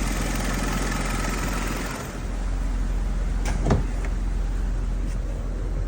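Kia Forte's 1.6-litre four-cylinder engine idling steadily, with one brief clunk about two-thirds of the way through.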